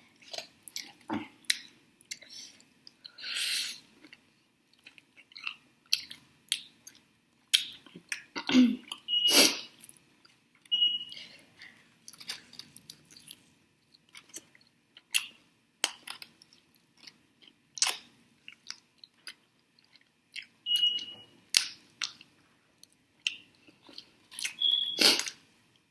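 Close-miked chewing and biting on chicken wings: irregular wet smacks and clicks of mouth and teeth on meat and skin.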